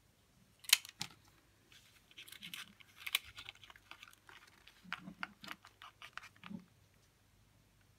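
Stiff folded paper rustling and crinkling as freshly glued paper cones are pressed together by hand, with scattered small clicks and a sharp knock about a second in.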